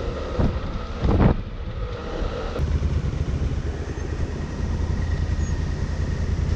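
Honda Africa Twin's parallel-twin engine running under way, with wind rushing over the microphone. A brief louder rush comes about a second in, and from about two and a half seconds the low engine rumble grows steadier and louder.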